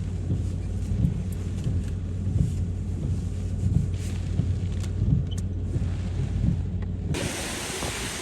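Typhoon winds buffeting the microphone as a low, gusting rumble. About seven seconds in the sound cuts abruptly to a loud, even hiss of wind-driven rain.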